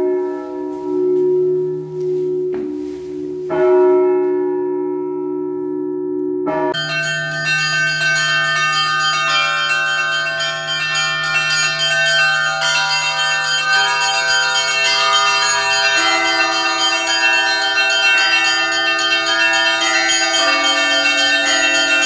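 Orthodox church bells rung by a bell ringer pulling ropes, ringing for the start of the liturgy. At first a few separate strikes ring out long. About seven seconds in, a full peal of many bells takes over, with small bells chiming quickly over deeper bells.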